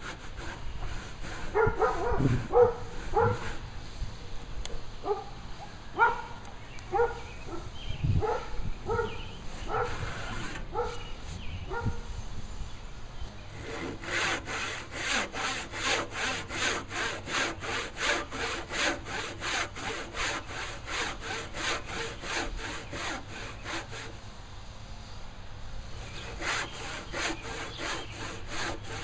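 Hand saw crosscutting a wooden sill beam. Short, uneven strokes start the cut, then the saw settles into steady full strokes about two a second. The strokes stop for about two seconds, then the sawing goes on.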